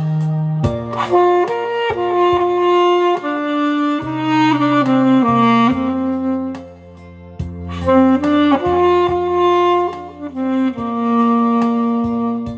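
Alto saxophone playing a melody in long held notes over a backing track with a bass line and light percussion.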